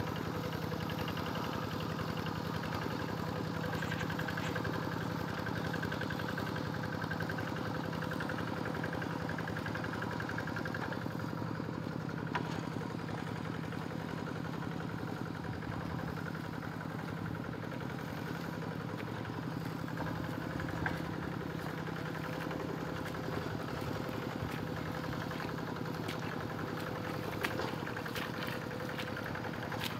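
Two-wheel hand tractor's engine running steadily while it ploughs a flooded rice paddy, an even drone throughout.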